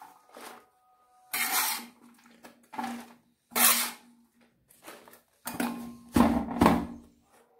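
Small hand trowel scooping and scraping soil off a large hammered metal tray in a series of short strokes, the tray ringing faintly under several of them. The heaviest strokes and thumps come near the end as the soil-filled bag is handled.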